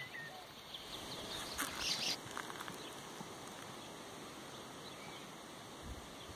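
Open-air rural background with a few bird chirps, the clearest cluster about two seconds in, and a dull low knock near the end; the cantering horse's hoofbeats are barely heard.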